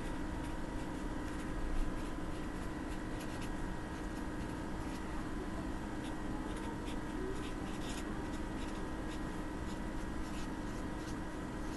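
Black felt-tip marker writing on paper: many short scratchy strokes, over a steady background hum.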